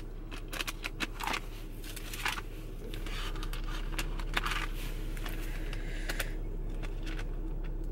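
Bible pages being leafed through: a string of short papery rustles, swishes and soft taps, over a low steady hum.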